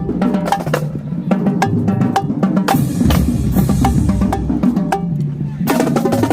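Marching drumline playing: snare drums, tenor drums and bass drums with many rapid strikes and rolls. It thins to a sparser stretch of hits, then the full line comes back in loudly near the end.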